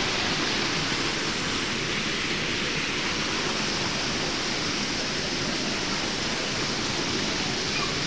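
Small waterfall splashing steadily into a pool, thin streams of water falling from a mossy rock overhang.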